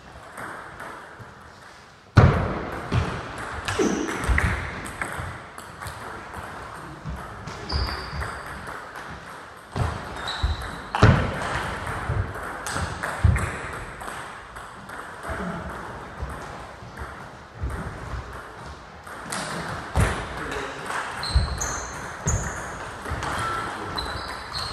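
Table tennis rally: the ball clicking sharply off the bats and the table in quick, irregular exchanges, starting about two seconds in. Short squeaks of sports shoes on the hall floor and footsteps mixed in.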